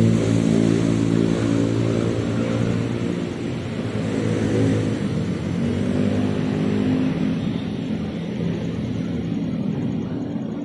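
Motor vehicle engine running on the street, a steady hum that fades about three seconds in and comes back at a slightly different pitch a couple of seconds later.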